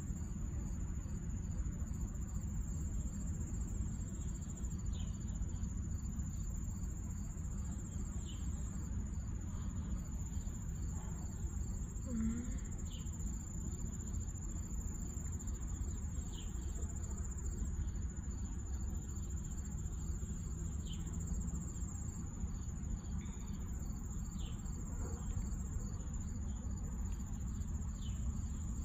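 Steady high-pitched insect drone, crickets, over a low rumble, with faint short chirps every three or four seconds.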